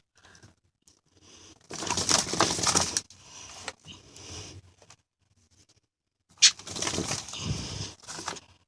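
A bird flapping its wings inside a car, in two flurries of a second or two each, the second opening with a sharp knock.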